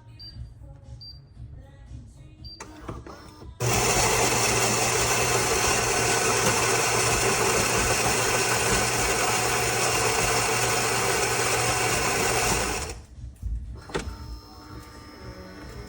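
Philips super-automatic espresso machine running: a loud, steady buzz and hiss starts suddenly about three and a half seconds in and stops about nine seconds later.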